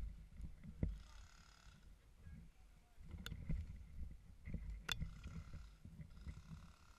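Low rustling and bumping of movement close to the microphone, with three sharp clicks and four short bursts of a higher buzzing sound.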